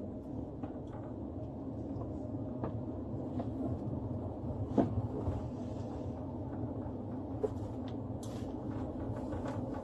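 Steady low rumble of a moving patrol car heard from inside the cabin, with scattered light clicks and one sharp knock about five seconds in.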